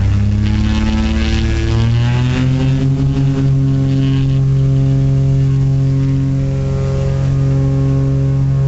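Britten-Norman Trislander's Lycoming O-540 six-cylinder piston engines and propellers, heard from inside the cabin. Their note rises over the first few seconds as the power comes up, then holds steady and loud.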